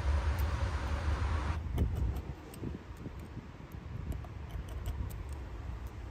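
Steady traffic rumble from a nearby freeway that drops off abruptly about a second and a half in. After that a faint low rumble remains under scattered small, light clicks of a repair tool on the phone's internals.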